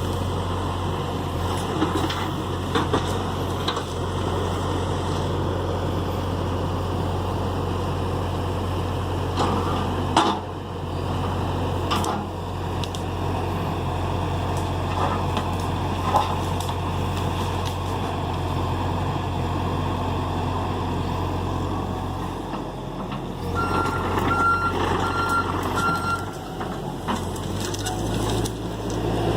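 John Deere excavator's diesel engine running steadily under work, with several sharp knocks scattered through it. Near the end a backup alarm beeps a few times in quick succession.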